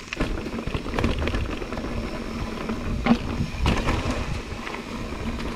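Mountain bike riding over a dirt trail: a steady rumble of tyres and wind on the microphone, with the bike clicking and rattling several times over bumps.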